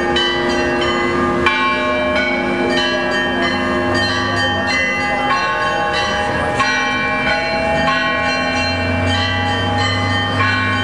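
Kazan Cathedral's Russian Orthodox church bells pealing without a break: many bells of different sizes struck rapidly over one another, with high bells ringing over lower sustained tones. A deep low tone sounds about four seconds in and again near the end.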